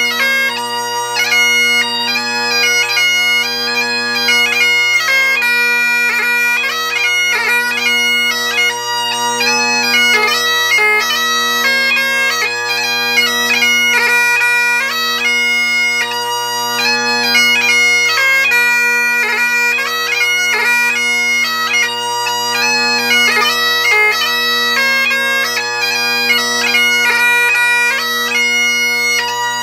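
Great Highland bagpipe playing a 6/8 march: a quick chanter melody over the steady bass and tenor drones, which waver slowly about once a second.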